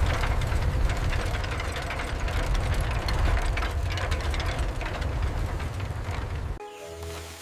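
Dense rattling, clattering mechanical noise over a low rumble, cutting off suddenly about six and a half seconds in.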